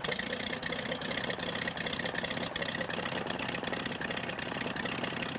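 Light aircraft's piston engine running steadily, a fast even beat.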